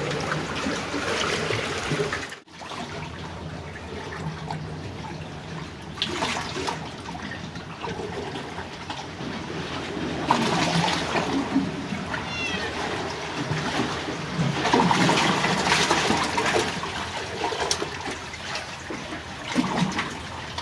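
Sea water sloshing and washing between breakwater blocks and rocks, swelling and easing every few seconds. A short high-pitched call is heard about twelve seconds in.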